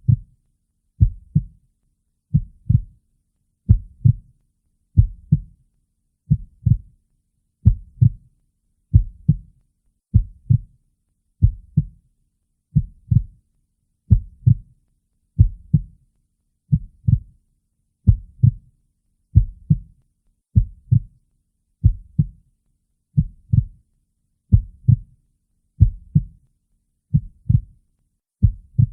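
Heartbeat sound: a slow, steady lub-dub, two low thumps close together, repeating about every 1.3 seconds.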